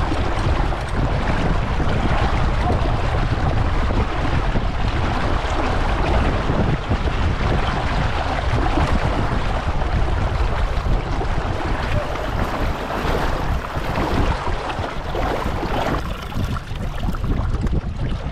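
Wind buffeting the microphone in a steady rumble, over the rush and splash of water along the hull of a small sailboat under sail.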